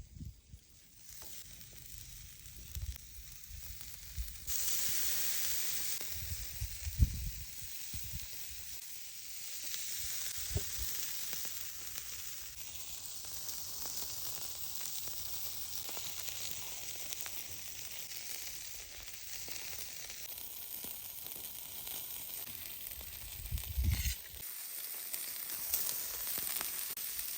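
Lamb chops sizzling on a braai grill over an open fire, a steady hiss that grows louder about four seconds in, with a few low bumps.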